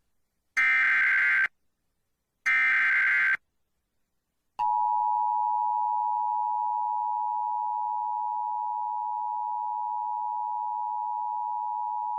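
Emergency Alert System activation on a radio broadcast: two short bursts of the buzzy SAME digital header tone, about a second apart, then about four and a half seconds in the steady two-tone EAS attention signal (853 and 960 Hz) begins and holds. It announces a National Weather Service severe thunderstorm warning.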